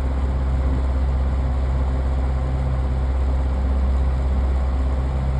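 Electric Air 10-inch desk fan running steadily on high speed, its motor humming with air blowing onto the microphone. The blades are turning a bit slowly even on high.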